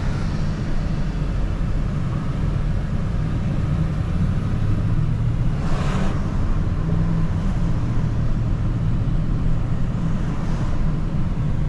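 Vehicle running at low speed, a steady low engine and road rumble heard from inside the cabin, with a brief rush of noise about six seconds in.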